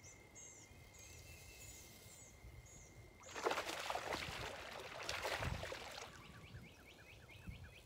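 Birds singing along the shore: repeated short, falling high whistled notes, then a quick run of chirps near the end, over a steady high whine for the first three seconds. About three seconds in, a loud rushing noise takes over for nearly three seconds.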